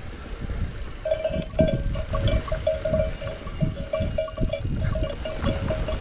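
Mountain bike riding over a rough mountain trail: rumble and knocks from the tyres and wind on the microphone. From about a second in, a steady mid-pitched tone pulses on and off several times a second.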